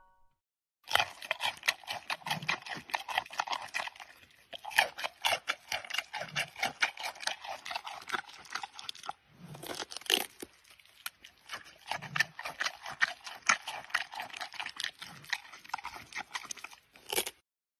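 Giant panda chewing and crunching chunks of pumpkin: a dense run of crunching bites that starts about a second in, with a short break near the middle.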